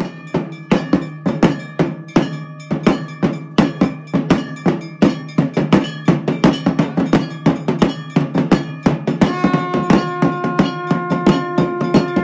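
Temple aarti percussion: metal bells clanging rapidly and continuously, a few strikes a second, together with beats on a large dhol drum, over a steady low hum. About nine seconds in, a steady held note joins.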